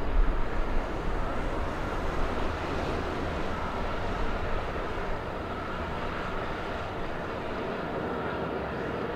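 Binter ATR 72 turboprop airliner's engines and propellers running with a steady hum and a faint whine as it rolls out on the runway after landing. Wind rumbles on the microphone, strongest in the first second and easing off.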